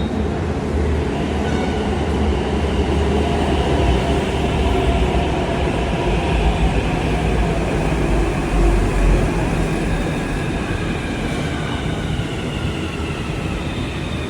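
Metro train pulling into the station: a steady rumble of wheels on rail with an electric whine that slowly falls in pitch as it slows.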